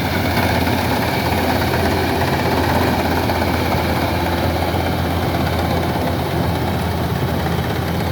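Rice combine harvester's engine running steadily, a loud, even drone with a strong low hum.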